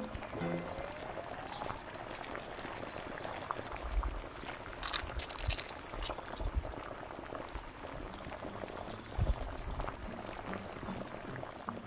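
Spicy ramyun broth boiling in a wide pan, a steady bubbling and sizzling, with a few sharp clicks from the pan and utensils.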